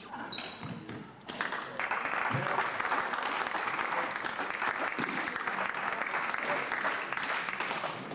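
Spectators applauding a won point, starting about a second in and dying away near the end, with voices among the crowd.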